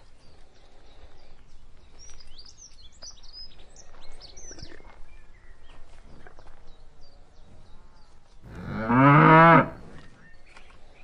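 A cow mooing once, a loud low call lasting about a second, near the end.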